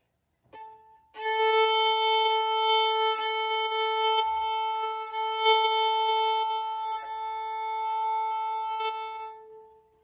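Violin bowing a long, steady note on the open A string, one unchanging pitch held with a few smooth bow changes. A short touch of the bow comes first, and the note begins about a second in and fades out near the end.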